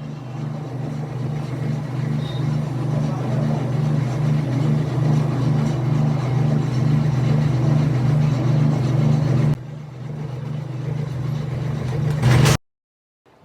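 Arc welding on a shaft to build up its diameter: a steady electrical hum with a rough crackle over it, dropping a little near the end before cutting off abruptly.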